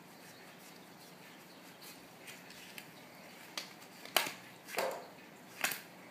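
Playing cards being handled: a few light ticks, then four sharp snaps in the second half as cards are flicked, squared and set down on the mat.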